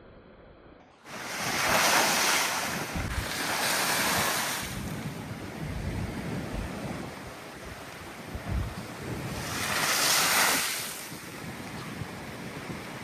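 Big sea waves breaking and surging, cutting in suddenly about a second in, with three loud crashes: one just after the start, one about four seconds in and one near ten seconds. Strong gusty wind buffets the microphone underneath.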